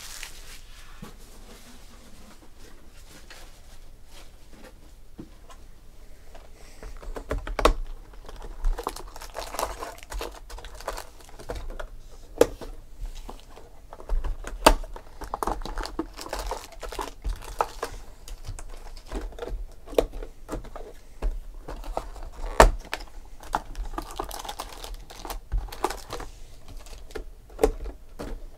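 Hands opening and handling trading card boxes and packs: plastic wrapper crinkling with many irregular sharp clicks and taps of cardboard and cards. The handling begins after a quieter first quarter.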